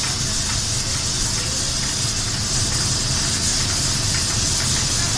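Paint spray gun hissing steadily as it sprays onto a ship's hull, over a steady low rumble.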